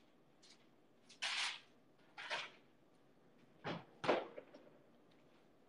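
Kitchen work noises: a few short scraping strokes, then two knocks a little past the middle, the second the loudest.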